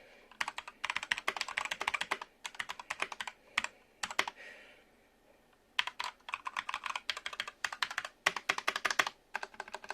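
Machenike K500 all-plastic mechanical keyboard, fitted with what the owner believes are red-style switches, being typed on in quick runs of keystrokes, with a pause of about a second and a half near the middle. A light, plasticky clatter without a deep thock.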